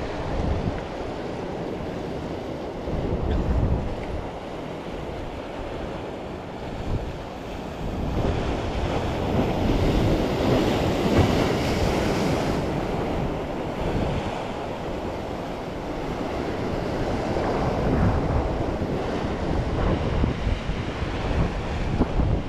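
Sea waves washing and breaking against the boulders of a rock jetty, with wind buffeting the microphone. A bigger wave surges up louder and hissier about halfway through.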